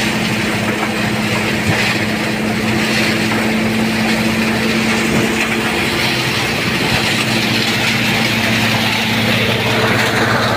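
Tractor-driven crop thresher running steadily. It makes a continuous machine hum with a rushing noise over it as material passes through.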